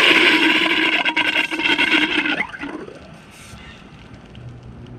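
Aerosol can of pump protector hissing as it discharges into a pressure washer pump's inlet fitting, a loud spray with a slight whistle that stops about two and a half seconds in.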